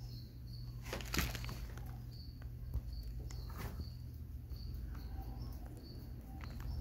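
Feeder crickets chirping, short high chirps about once a second over a steady low hum, with a couple of knocks, the loudest about a second in.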